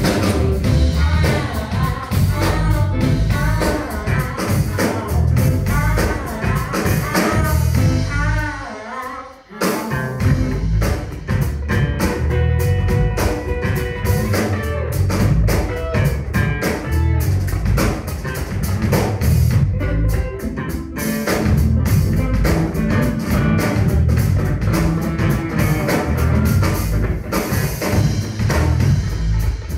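Live soul band playing: a woman's singing over electric guitar, bass guitar and drum kit. The band breaks off briefly about a third of the way in, then plays on without vocals, with guitar over the drums.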